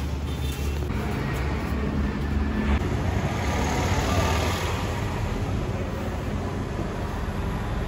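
Road traffic: a steady low engine rumble, with a passing vehicle swelling louder about three to five seconds in.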